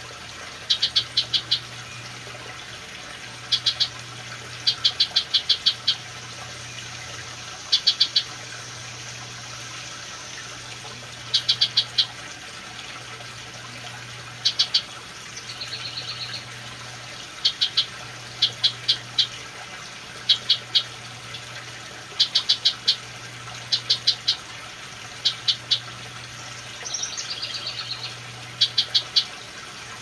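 House wren calling: quick runs of three to six short, high chips, repeated every second or two, with a longer buzzy call near the middle and another near the end.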